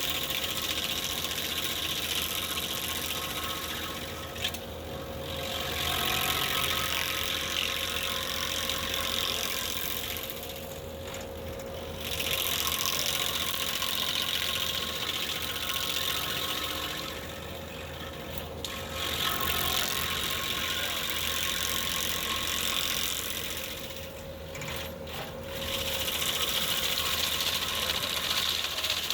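Skid-steer-mounted stump grinder working. The machine runs steadily underneath, while the grinding wheel's harsh noise swells and drops back in passes every six or seven seconds.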